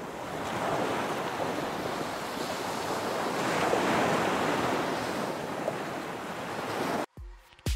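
A steady rushing noise, swelling towards the middle and cutting off suddenly about seven seconds in. Music then starts with deep bass thumps near the end.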